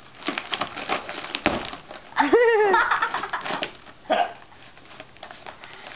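A dog tearing into a cardboard box: quick crackling and ripping of cardboard and paper through the first two seconds, then sparser crackles. A brief wavering vocal sound comes a little over two seconds in.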